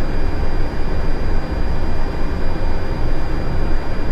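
Steady rushing cockpit noise of an Airbus A320 on short final approach, airflow and engine noise heaviest at the low end, with two faint steady high-pitched tones above it.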